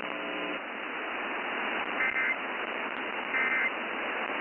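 Emergency Alert System end-of-message data bursts: two short, buzzy two-tone digital squawks about a second and a half apart, over steady radio hiss. They mark the end of the warning message.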